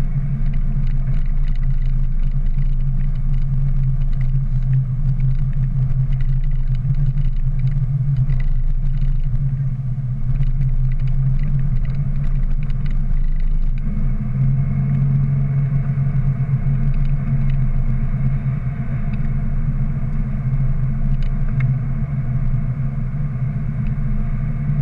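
Ford Ranger pickup driving, heard from inside the cab: a steady low engine and road drone that grows a little stronger about halfway through.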